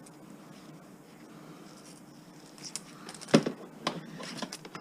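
Handling of a length of insulated copper wire at an electric wire stripper: a faint steady hum, then from about halfway a handful of sharp clicks and knocks, the loudest a little past three seconds in.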